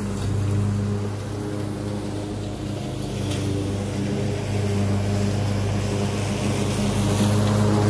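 Craftsman Z6000 zero-turn mower's engine running steadily while mowing, a constant low hum that grows louder toward the end.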